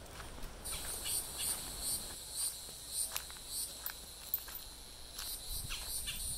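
Insects chirring in the woods: a high, steady drone that pulses about twice a second, starting under a second in.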